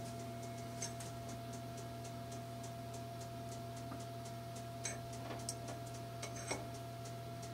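A few small clicks from chopsticks setting chestnuts into cake batter in a metal loaf tin, the sharpest about six and a half seconds in, over a steady hum and a fast, even, light ticking.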